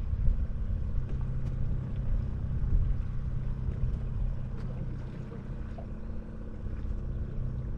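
Boat motor running steadily with a low, even hum.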